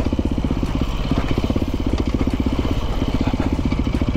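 Dirt bike engine running at a fairly steady speed while being ridden along a trail.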